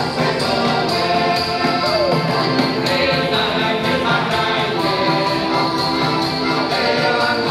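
Heligónkas (diatonic button accordions) playing a lively folk tune together through a PA, with male voices singing the melody.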